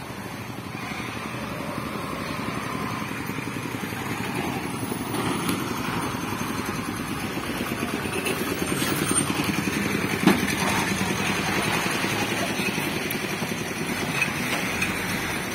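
Engines of road vehicles crossing close by, a three-wheeled goods carrier and heavy tipper trucks among them, the sound building over the first half and staying loud. There is one sharp knock about ten seconds in.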